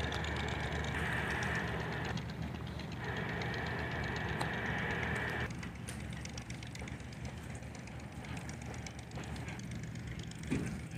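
Steady low drone of a ship's engine, with a higher hiss over it that breaks off about five seconds in, and a single thump near the end.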